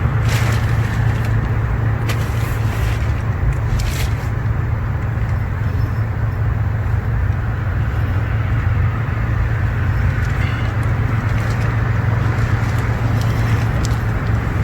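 Steady low rumble of background noise, with a few brief rustles or clicks in the first four seconds.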